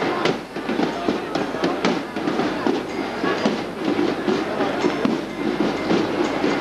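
A rapid, irregular run of sharp cracks or beats over a busy background of voices.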